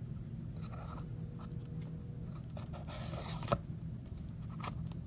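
Trading cards and their packaging being handled: faint scraping and rustling, with a sharp click about three and a half seconds in, over a steady low room hum.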